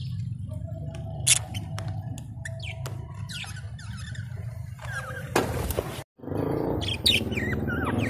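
Caged budgerigars and lovebirds giving short, scattered chirps and tweets over a steady low hum. A short burst of noise comes just after five seconds, then the sound drops out for a moment before the chirping goes on.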